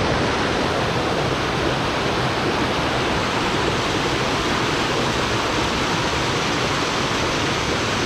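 Fast-flowing rainforest stream cascading over rocks: a steady rush of water.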